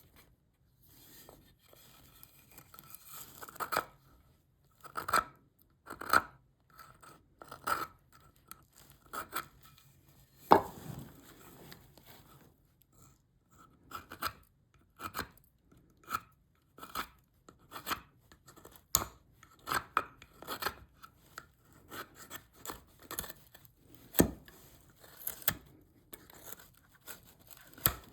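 Hand blade strokes shaving and cutting cherry wood, short irregular cuts about one or two a second, with one louder stroke about a third of the way through.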